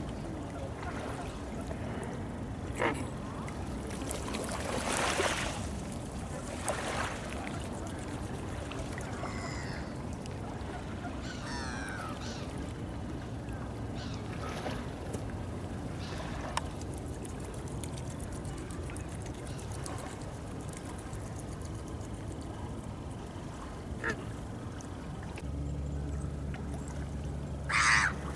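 Scattered short calls of waterbirds over a steady low background of open water, the loudest call coming near the end. A low steady hum joins a few seconds before the end.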